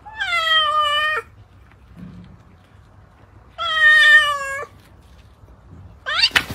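Young cat meowing twice, each a drawn-out meow of about a second, slightly falling in pitch, a few seconds apart. A short rising sound follows near the end.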